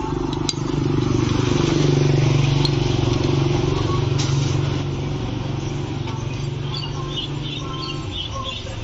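A motor vehicle's engine passing close by: a low drone that swells about half a second in and fades after about five seconds. A few light clinks of a metal scoop against a coffee jar sit over it.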